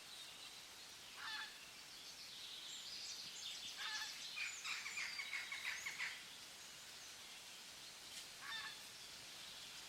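Birds calling over a faint outdoor hiss: short honk-like calls about a second in and again near the end, with a few seconds of rapid, high chattering calls in the middle.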